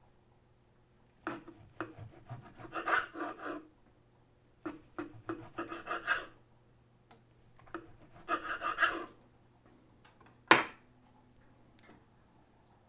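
Knife sawing back and forth through the crusty bark of a smoked brisket on a wooden cutting board, in three bouts of rasping strokes. A single sharp knock follows near the end.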